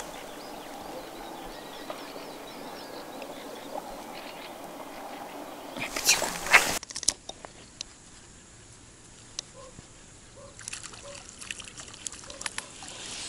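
Lakeside water sounds: a steady wash of small water noise, then a short loud splash-like burst about six seconds in. After that it is quieter, with scattered small drips and clicks at the water's edge.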